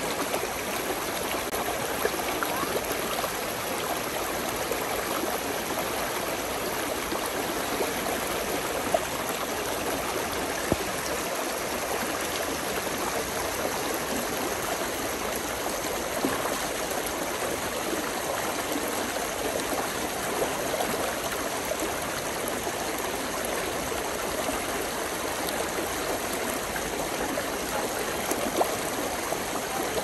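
Small stream babbling steadily, a continuous gurgling rush of running water, with a few brief louder splashes here and there.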